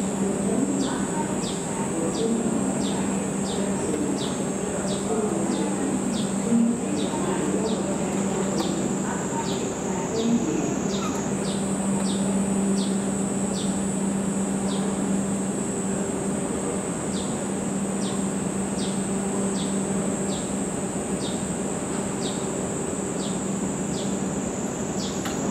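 Summer cicadas: a steady high-pitched drone, with a short call repeating about one and a half times a second, over a steady low hum.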